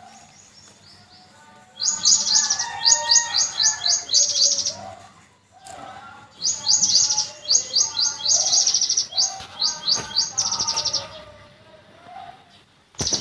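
Birds chirping in fast trains of high repeated notes, in two long bouts with a short pause between, with lower wavering calls underneath; a sharp click near the end, then the chirping starts again.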